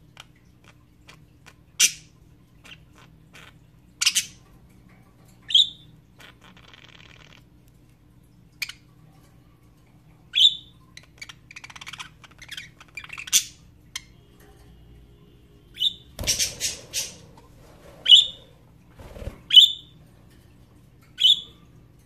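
A pair of budgerigars courting, giving short sharp chirps and squawks every second or two with soft chatter between them. About three-quarters of the way in comes a quick flurry of calls with rustling and a low thump.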